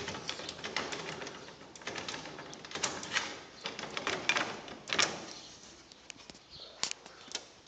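Scattered clicks, knocks and light rattles as a greenhouse window panel is handled and slid down into its frame.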